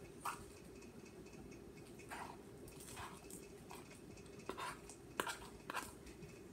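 Spoon stirring thick, sticky slime in a bowl: irregular soft squelches and light clicks, about a dozen over a few seconds, as the slime comes together.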